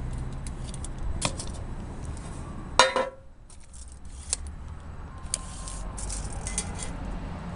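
Steel rectangular tubing handled on a steel work table: one loud metal clank with a short ring about three seconds in, and lighter metallic clicks and taps around it, over a low steady rumble.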